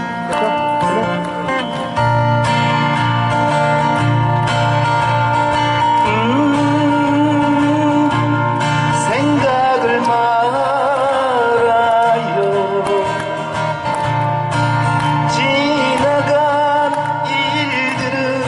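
Live music through a PA: an amplified acoustic guitar over a pulsing bass line, with a wavering sung melody coming in about six seconds in.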